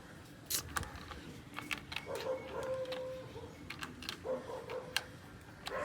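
Light clicks of plastic game pieces being picked up and turned over on a board, with a thin, steady whine heard twice, once for about a second.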